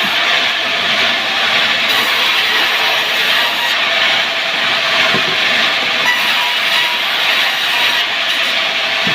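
Power wood saw running steadily through timber, a continuous loud hissing, grinding noise with a few faint steady tones under it.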